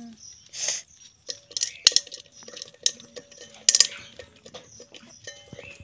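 A woven bamboo ghuni fish trap is shaken and knocked against an aluminium pot, with small fish dropping into the water: irregular clattering knocks and rattles with a few short splashes.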